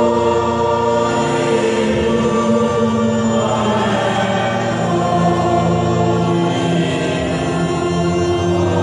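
Congregation singing together, holding long, drawn-out notes.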